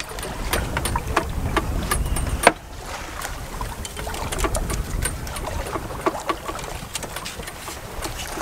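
Sailboat moving under sail: water rushing past the stern and wind rumbling on the microphone, with scattered small clicks and knocks from handling a fishing hand line. A sharp click about two and a half seconds in, after which the wind rumble briefly drops.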